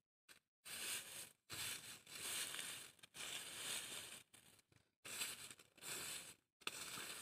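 Dry pine needles rustling and crunching as they are gathered by hand into a heap, in a string of short bursts with brief pauses between them.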